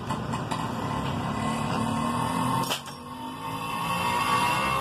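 Steady mechanical hum with a single sharp click a little under three seconds in.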